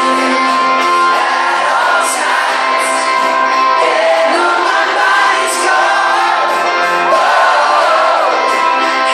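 Live pop-rock ballad heard in a concert hall: a male voice singing over keyboard accompaniment. The sound is thin, with almost no bass.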